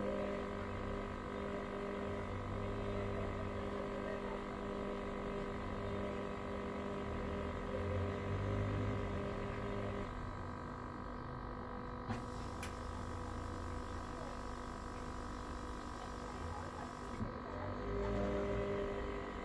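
Hoover washing machine partway through a cotton 90 °C wash: the drum motor runs with a low hum and rumble, stops about halfway, and starts again near the end, the stop-and-start rhythm of the wash tumble. A single click comes about two seconds after the stop, over a steady background hum.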